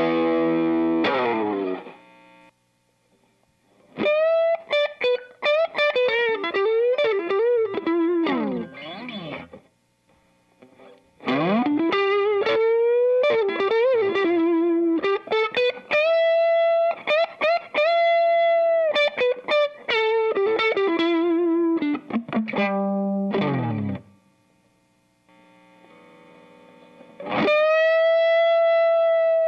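Electric guitar through an MXR Sugar Drive, a Klon-style overdrive pedal, playing single-note lead phrases with string bends and vibrato on long held notes. The playing breaks off three times for a second or two between phrases.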